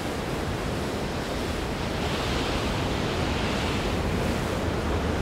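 Container ship's bow cutting through the sea: a steady rush and splash of water in the bow wave, with wind.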